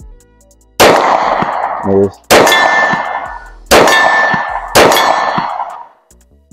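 Four pistol shots, about a second to a second and a half apart, each followed by a long metallic ringing tail.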